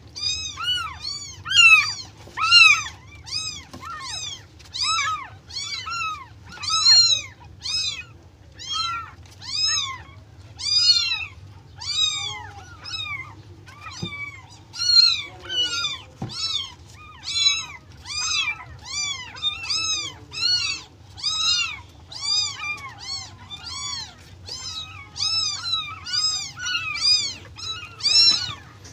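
Newborn kitten mewing over and over, short high-pitched cries about two a second, each rising and then falling in pitch. It is an orphaned kitten crying while being hand-fed milk from a syringe.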